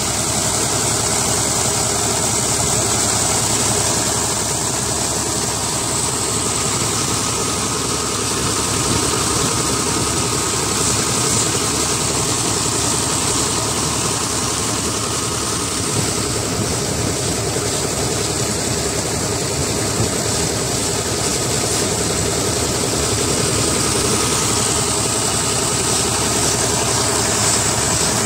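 Tractor diesel engine running steadily, driving a tube-well pump through a shaft. Water gushes from two outlet pipes into a channel.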